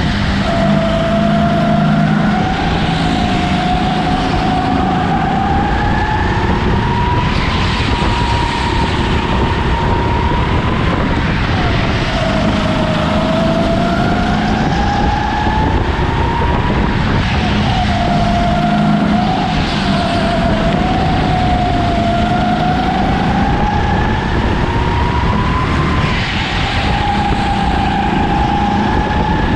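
Go-kart engine at racing speed, its pitch climbing steadily for several seconds and then dropping sharply, over and over as the kart accelerates and slows for corners.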